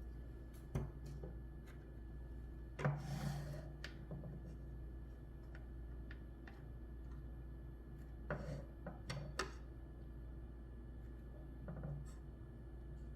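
Titanium-handled folding knife being handled: scattered light clicks, a brief rubbing scrape about three seconds in, and another cluster of clicks around eight to nine seconds in.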